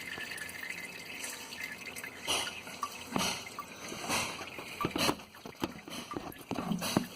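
Cleaning fluid trickling and dripping in a homemade parts washer, with several light knocks and splashes at irregular moments.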